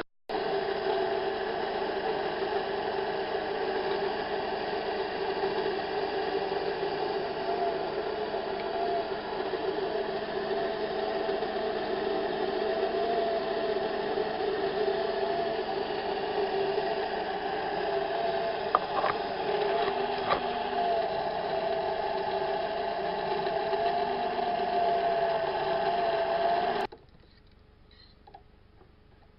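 Metal lathe running a turning cut on steel bar stock: a steady machine hum with a slightly wavering whine that cuts off abruptly near the end.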